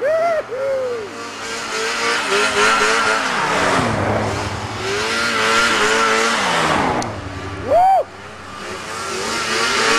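Arctic Cat snowmobile engines running hard as the machines pass one after another, their pitch rising and falling as the riders work the throttle. A sharp rev that climbs and drops quickly about eight seconds in is the loudest sound.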